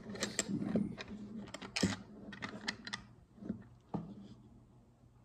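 Irregular plastic clicks and scrapes as rubber-treaded wheels are worked and pushed by hand onto the axle rods of a plastic toy rover base; the wheels are stiff to get on. The clicking is busiest in the first three seconds, with a louder click near two seconds and a sharp snap about four seconds in.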